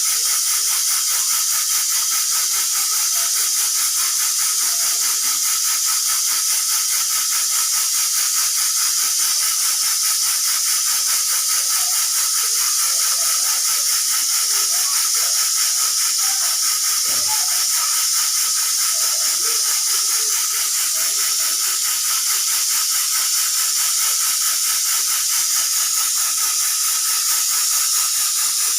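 Pressure cooker hissing steadily as steam escapes, with no whistle: the cooker is failing to build up to its whistle.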